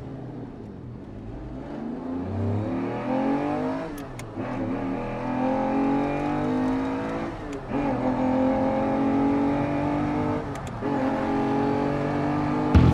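Train accelerating, its motor whine rising in pitch, broken every three to four seconds by a short click before the whine picks up again.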